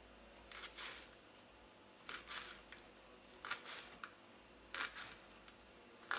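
Knife slicing through fresh chives onto a cutting board: faint, crisp cuts that come in short clusters of one to three, about every second or so.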